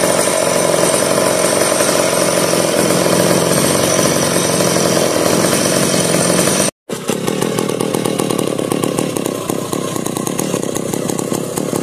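1990s McCulloch Pro Mac 700 two-stroke chainsaw idling steadily, running again after sitting unused for seven years. The sound cuts out for a moment about seven seconds in, then the saw idles again with a choppier, pulsing note.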